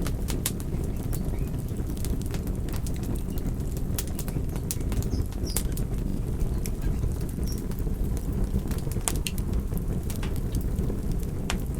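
Campfire burning: a steady low rush of fluttering flames with scattered sharp crackles and pops throughout.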